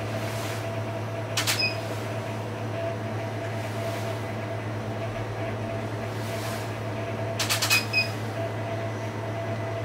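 Steady low electrical hum with a fainter steady higher tone, broken twice, about a second and a half in and again near the end, by a quick cluster of sharp clicks with short high beeps.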